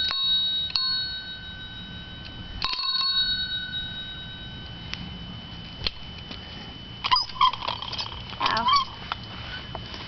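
A child's handlebar bicycle bell rung three times in the first three seconds, each ding ringing on. A few short squeaky sounds follow near the end.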